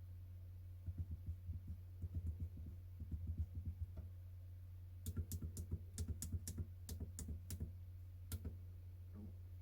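Keys on a SwissMicros pocket calculator being pressed in quick succession. First comes a run of soft, dull taps for about three seconds. After a short pause there is a run of sharper, crisper clicks. A steady low hum runs underneath.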